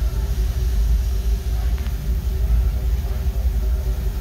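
Steady low rumble of a narrow-gauge steam train on the move, heard from the car just behind the tender of Baldwin-built locomotive No. 4, Ernest S. Marsh.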